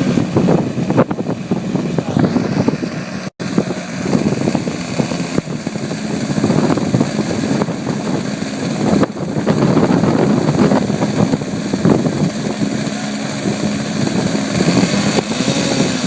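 Radio-controlled model aircraft engines running steadily with a pitched hum, dropping out for an instant a little over three seconds in.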